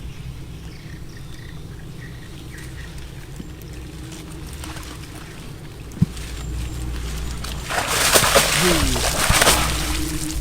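Water splashing and pouring, loudest for about two seconds near the end, over a low steady hum, with a single sharp knock about six seconds in.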